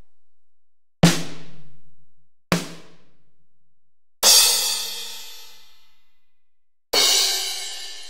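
Single drum-kit samples played one after another: the tail of a drum hit dies away, two separate drum hits follow about a second and a half apart, then two cymbal crashes each ring out for over two seconds.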